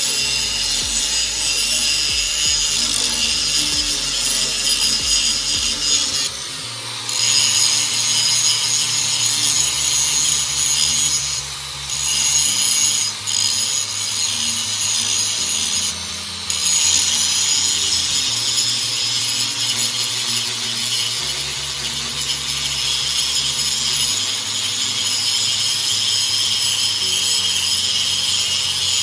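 11-amp DeWalt angle grinder grinding the edge of a brush cutter blade: a steady, high, gritty grinding. A few short breaks in the first half mark the disc lifting off the blade before it bites again.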